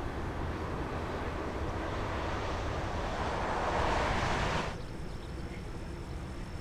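Distant Airbus A330 jet engines at the runway: a steady low rumble. A rushing noise swells over about three seconds and cuts off abruptly near the middle at an edit, leaving the quieter rumble.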